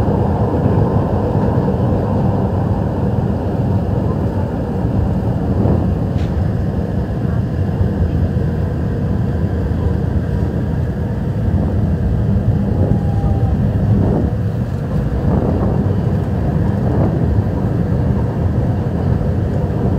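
Manila MRT-3 train running between stations, heard from inside a packed carriage: a loud, steady rumble of the moving train with a faint murmur of passengers.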